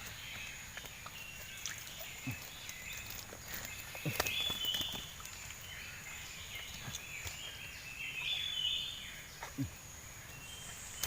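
Outdoor wildlife chorus: a steady high drone with repeated chirping animal calls over it, and a few scattered short knocks.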